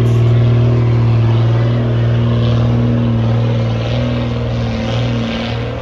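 Unimog truck's engine running steadily under load as it climbs a steep dirt hill, a deep even hum that fades slightly in the second half as the truck moves away.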